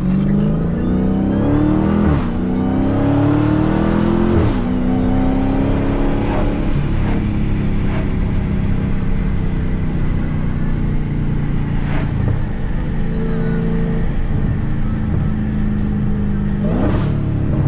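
Stock Dodge Challenger SRT Hellcat's supercharged 6.2-litre Hemi V8 accelerating, its pitch rising and dropping at two upshifts in the first few seconds, then running at a steadier pitch. A few sharp exhaust pops break in along the way.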